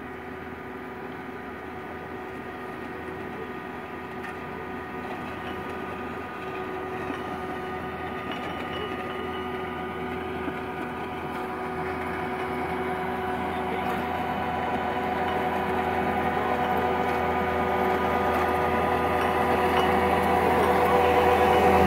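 Caterpillar 299 compact track loader running at a steady engine speed while it pushes and grades loose soil with a blade, growing steadily louder as it comes closer.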